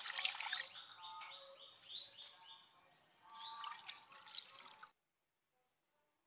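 Birds singing: repeated runs of short, falling whistled notes that cut off abruptly about five seconds in.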